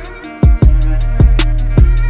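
Background music: a hip-hop style beat with deep kick drum hits and booming bass, a fast steady tick of hi-hats, and a melody line over it.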